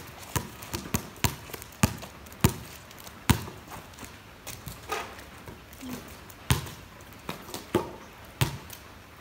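Basketball dribbled on a wet concrete court, bouncing about twice a second at first. After a short gap around the fourth second come a few more spaced-out bounces.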